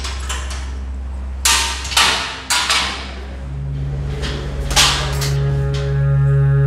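Steel bolt and barred cell gate clanking: several sharp metallic clanks with a short ring, the last and loudest about five seconds in, as the gate is unbolted and pushed. A steady low hum runs underneath, and a sustained low musical drone comes in about three and a half seconds in and swells.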